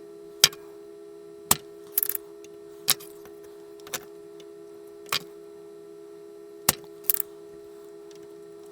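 A steady electric hum with sharp metallic clicks and taps every second or so, some in quick pairs, from tools working at solder joints on a circuit board.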